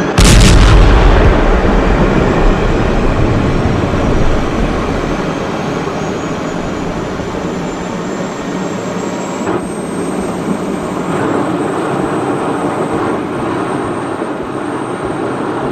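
Sound-effect soundtrack: a loud explosion boom about a quarter second in with a long low rumble, followed by a steady jet aircraft roar carrying a faint, slowly rising whine.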